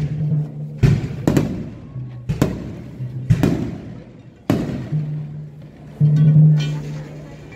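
Procession band playing a slow march: low brass holds long notes while drum and cymbal strokes land about once a second, the loudest stroke a little past the middle.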